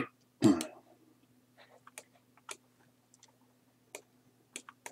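Computer mouse and keyboard clicks, a handful of short sharp clicks spaced irregularly, over a faint steady electrical hum. A louder, duller thump comes about half a second in.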